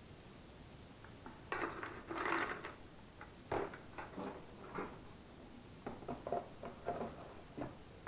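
Cardboard box and packaging being handled: rustling, scraping and light knocks of cardboard and plastic, starting about a second and a half in, with a few sharper clicks near the middle.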